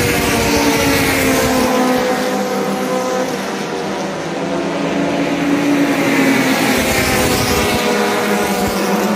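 Race car engines running around the circuit, several at once. Their notes fall in pitch over the first few seconds, then rise again past the middle as cars accelerate along the straight.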